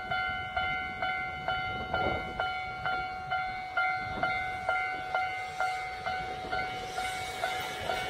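Japanese railway level-crossing warning bell ringing steadily, about two strikes a second, each ding fading before the next. Low rumble underneath.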